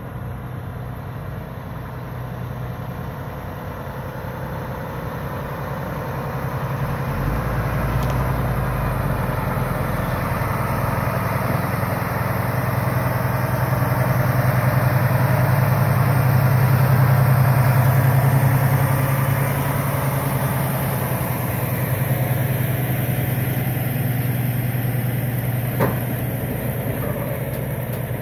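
Diesel engine of a semi-truck towing a lowboy trailer loaded with an excavator, running steadily as the rig drives slowly past, growing louder toward the middle and easing off a little as it goes by. A single short click near the end.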